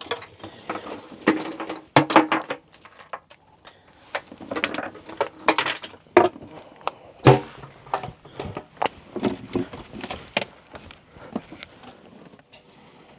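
Irregular clicking, rattling and clattering of fishing gear being handled in a boat, with sharp knocks now and then; the loudest knock comes about seven seconds in.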